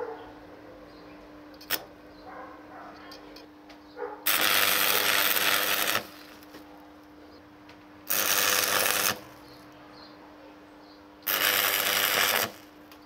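Stick arc welding: three short tack welds laying a nut onto a seized, broken stud, each a burst of arc crackle lasting between one and two seconds. A steady low hum runs between the welds.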